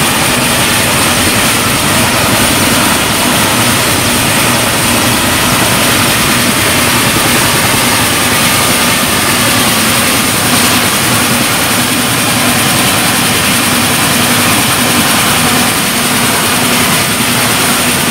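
Mi-17 helicopter's turbine engines running at ground idle: a loud, steady rush of noise with a high, steady whistle.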